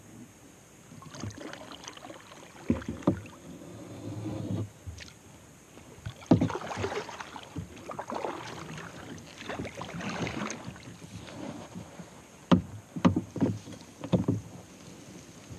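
Kayak paddle strokes in the water, with several sharp knocks of the paddle against the hull, clustered about three seconds in and again near the end.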